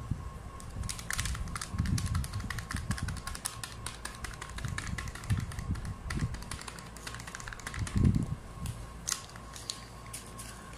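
Crinkling and crackling of a folded spice packet being handled and shaken over a bowl, with a few dull thumps of handling, the loudest about eight seconds in.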